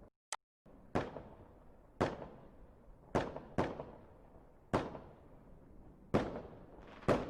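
Fireworks going off in a display: a series of sharp bangs about a second apart, each trailing away in a fading echo, with two bangs close together a little past three seconds in.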